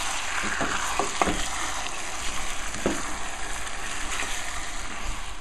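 Lamb and onion puree sizzling steadily in hot oil in a saute pan while being stirred with a wooden spoon, with a few short knocks of the spoon against the pan.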